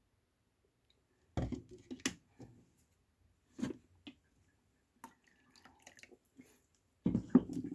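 Liquid dripping and pouring into a cup as a drink is mixed: a few separate splashes and drips, light clicks, then a longer run of pouring near the end.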